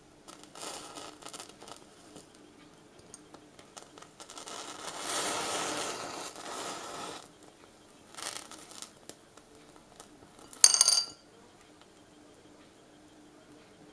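Burning matchsticks crackling, with a rushing hiss a few seconds in as a batch of match heads flares up. About eleven seconds in, a krona coin drops from the burning match platform onto a glass saucer with a sharp, briefly ringing clink.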